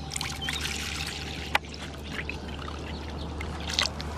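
Water being poured into a plastic bowl, a steady trickling and splashing, with a couple of sharp clicks from the bowl being handled.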